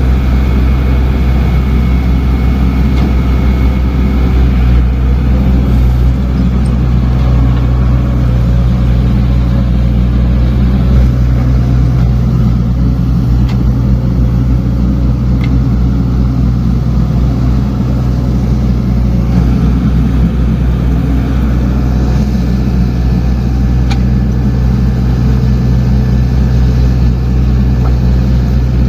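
Diesel engine of a small earthmoving machine running steadily at working speed, a deep even drone with a few faint clicks over it.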